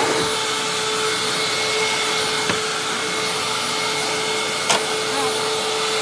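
Hoover WindTunnel Lite upright vacuum cleaner running steadily on carpet, a rush of air with a steady pitched whine, and one sharp click near the end. Its brush-roll belt is worn out, which the owner calls shot.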